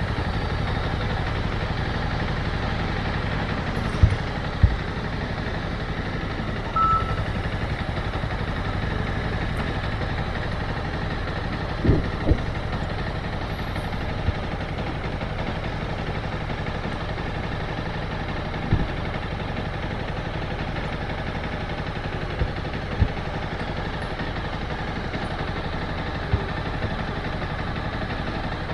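Motorcycle engine running steadily with no revving, broken by a few brief thumps, and one short high beep about seven seconds in.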